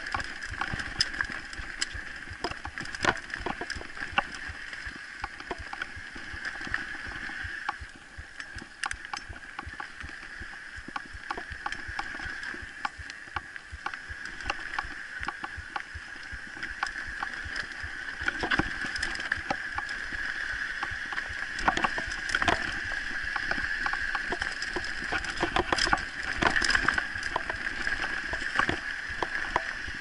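Mountain bike rolling down a dirt trail: a steady hiss from the tyres and the ride, broken by frequent sharp clicks and knocks as the bike rattles over roots and rocks. It grows louder and busier about halfway through.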